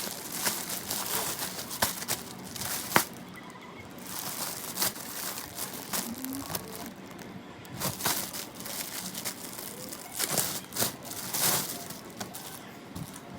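Irregular rustling and crinkling of handled material, with scattered sharp clicks and knocks, the loudest about three seconds in.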